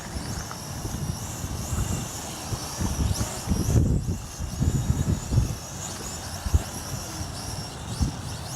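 Strong wind buffeting the microphone in uneven low rumbling gusts, over the thin high whine of a small folding quadcopter's propellers, its pitch wavering up and down as the drone is held against the wind.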